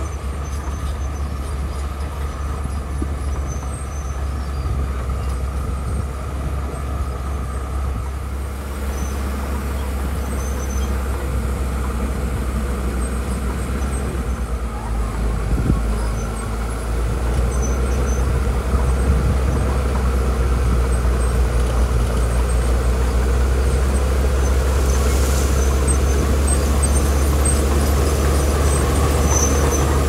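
Diesel engine of a D41E crawler bulldozer running steadily under load as it pushes gravel, with other road machinery running nearby; it grows louder from a little past halfway through.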